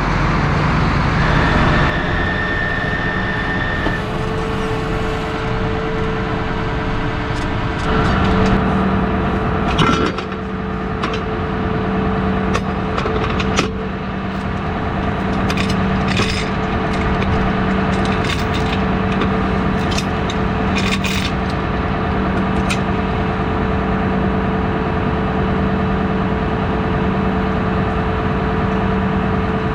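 Farm machinery running steadily with a constant hum, with scattered clicks and knocks through the middle stretch.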